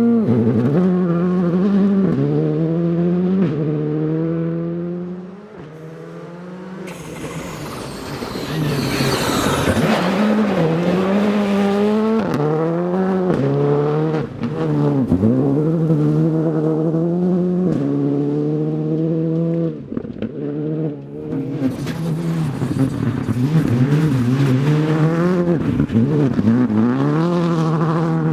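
Rally car engine under hard acceleration, its revs climbing and dropping sharply again and again as it changes gear and lifts for corners. A burst of hissing noise runs from about seven to eleven seconds in.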